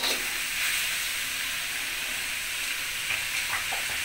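Stir-fry of napa cabbage, tofu and seafood sizzling steadily in a hot aluminium wok, with one scrape of the spatula right at the start.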